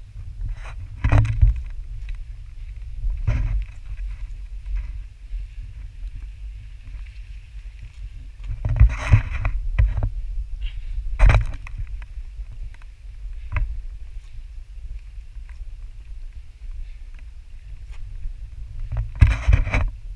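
Steady low rumble of wind and handling on a handheld GoPro's microphone as a hiker walks, broken about five times by short, louder bursts of rustling and scuffing as he pushes through brush and steps over rocks.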